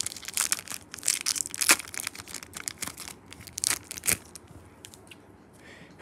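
Foil Pokémon booster pack wrapper crinkling and tearing as it is pulled open by hand, in quick crackly bursts that thin out after about four seconds.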